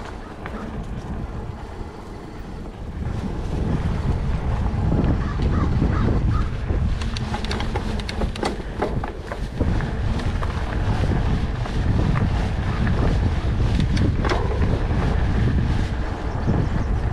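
Wind buffeting the microphone over the rumble of a Trek Stache hardtail's plus-size tyres rolling on dirt singletrack, with the bike rattling and knocking over bumps. It gets louder about three seconds in.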